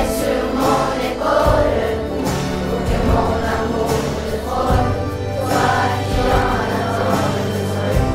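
A children's ukulele ensemble playing a song, with a group of voices singing and a bass line underneath.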